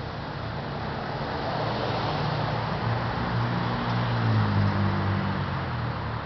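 Cars driving past on a street, with tyre and engine noise. It swells as a car passes in the near lane, loudest a little after four seconds in, where a low engine hum stands out.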